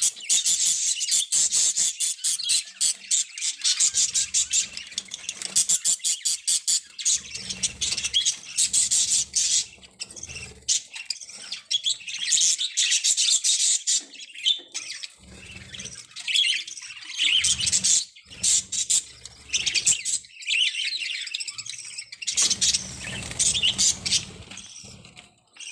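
Budgerigars chattering and chirping in rapid, high-pitched warbles, with short pauses.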